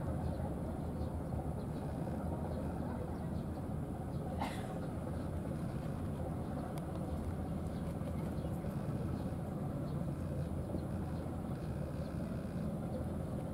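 Steady low outdoor background rumble, with one sharp click about four and a half seconds in.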